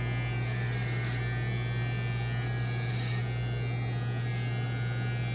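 Electric hair clipper running steadily.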